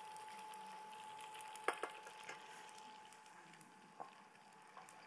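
Boiled potato gnocchi sizzling faintly in butter in a stainless steel skillet, stirred with a wooden spatula that knocks lightly against the pan a few times, about a second and a half in and again near the end. A faint steady tone hums underneath.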